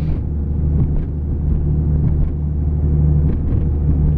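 Lifted Jeep's engine and drivetrain droning steadily while driving on a snowy road, heard from inside the cab, with a few faint clicks.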